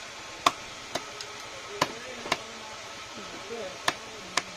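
A cleaver chopping pangas fish into steaks on a wooden log block: about six sharp strikes at uneven intervals, each blow cutting through the fish into the wood.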